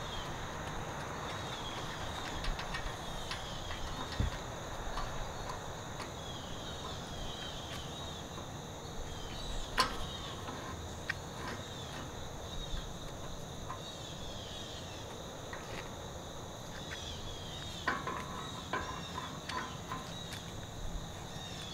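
Steady chirping of insects, with a few sharp metallic clicks and taps from the puller being worked on the fan blade hub, the loudest about halfway through and a cluster near the end.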